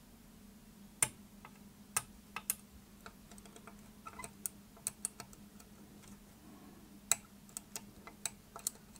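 Small sharp metallic clicks, irregular and about a dozen of them, some in quick pairs, as a thin metal tool rocks the desoldered pins of an LCD indicator in their circuit-board holes to free them once the solder has been sucked out.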